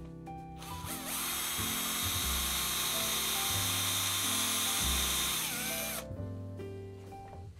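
Cordless drill spinning up and boring a dowel hole into a wooden board for about five seconds, with a steady motor whine, then winding down as the bit is drawn out.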